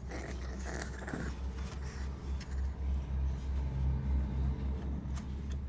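Bulldog puppy snoring in her sleep: a noisy snorting breath in the first second, then a low snore that swells in the middle.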